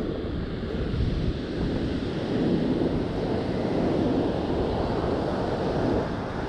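Breaking ocean surf washing steadily, with wind buffeting the microphone in uneven gusts.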